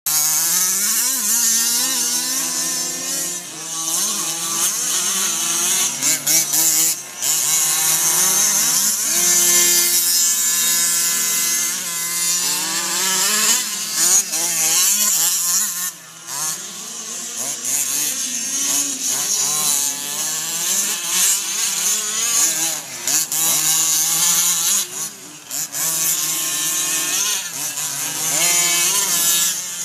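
Several 1/5-scale gas-powered Losi RC cars' small two-stroke engines revving as they race, each engine's pitch constantly rising and falling and overlapping with the others, now and then dropping away briefly.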